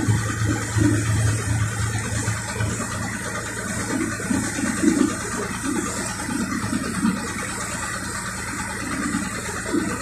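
Excursion boat under way: its engine running with a steady low hum while water rushes and splashes along the hull.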